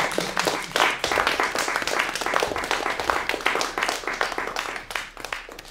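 Small audience applauding with many overlapping hand claps, fading out near the end.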